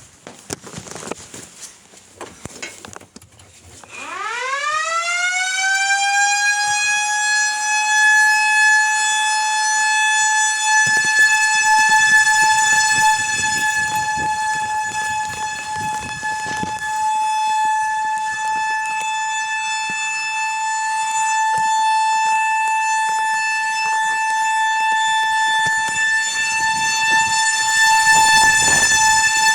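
Outdoor warning siren starting up about four seconds in, its pitch rising quickly and then holding one steady tone, sounding for a tornado warning.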